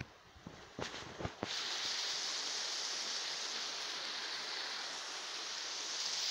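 A few light knocks, then a steady rushing hiss of flowing water that comes in abruptly about a second and a half in and holds evenly.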